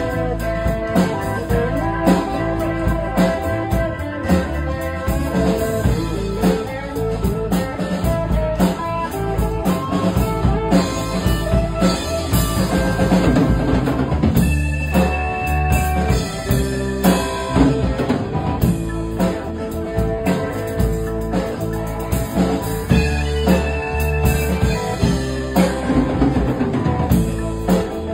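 Live band playing a song on electric guitar, electric bass, drum kit and keyboard, with the drums steady throughout.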